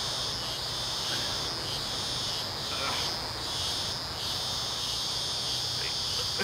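A chorus of insects chirring in a steady high band with a faint regular pulse.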